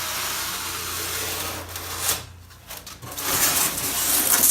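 Rough rubbing noise in two stretches, the second louder, over a steady low hum.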